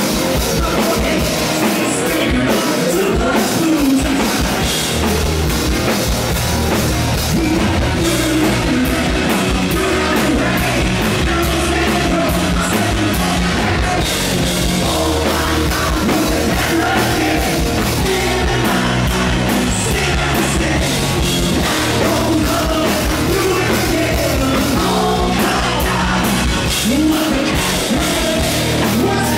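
Live rock band playing loud: a male lead singer over electric guitar and a drum kit.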